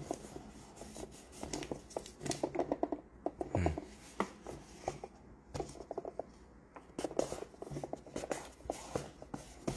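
Fingers scratching, rubbing and picking at a cardboard box and its paper sleeve, with paper rustling and irregular small clicks; a dull knock about three and a half seconds in.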